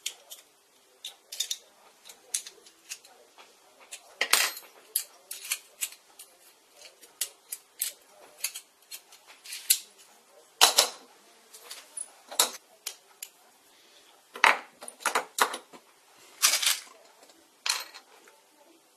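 Small metal parts and hand tools clicking and clinking against each other and the bench as small aluminium lever parts are handled and fitted together: many short, sharp clicks at irregular intervals, a few of them louder.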